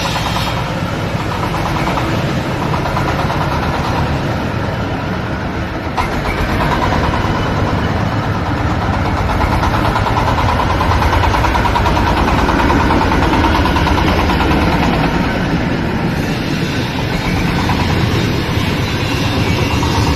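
Corn sheller for unhusked cobs running steadily: a loud engine drone under a dense mechanical rattle. A knock about six seconds in, after which it runs slightly louder.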